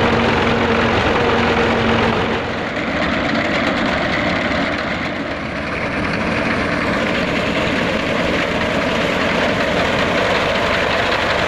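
Old Al-Ghazi diesel tractor working under load, driving a front-mounted reaper binder through standing wheat: steady engine running mixed with the reaper's mechanical noise. The steady hum of the first two seconds or so drops away, leaving a slightly quieter, rougher mechanical noise.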